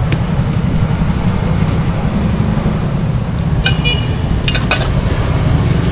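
Outdoor market ambience: a steady low rumble of motorbike traffic and bustle. A short metallic clink sounds a little before four seconds in, followed by a few sharp clicks.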